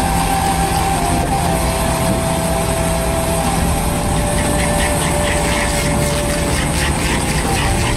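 Hydraulic stump drill on a compact wheeled machine boring into a tree stump, over the machine's steady engine drone. The drill's whine drops in pitch by steps, with light crackling of wood in the second half.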